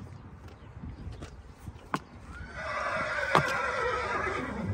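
A horse whinnies in one wavering call lasting about two seconds, starting a little past halfway. A few sharp knocks come before it.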